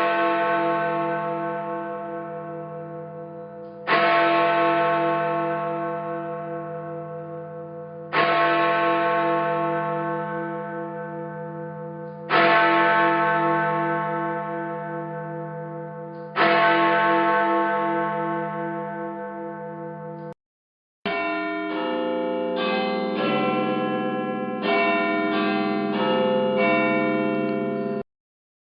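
A large church bell tolling five times, about four seconds apart, each stroke ringing out and slowly fading with a pulsing hum. After a short break, several bells sound different notes in quick, overlapping succession.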